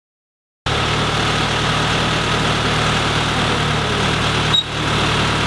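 Septage vacuum truck's engine running steadily while the truck unloads through its hose, cutting in suddenly about half a second in, with a brief break a little past four and a half seconds.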